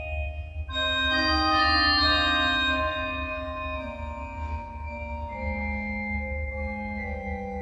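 Organ improvisation: sustained, held chords. A fuller, louder chord comes in just under a second in, and the harmonies then change slowly over a low line that steps down.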